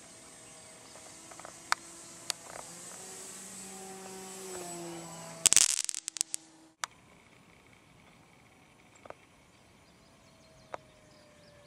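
Faint, distant hum of a ParkZone T-28 electric RC plane's motor and propeller in flight, its pitch wavering slightly. About five and a half seconds in, a short burst of loud crackling clicks, then the motor quieter with a faint tone sliding down as the plane comes in low to land.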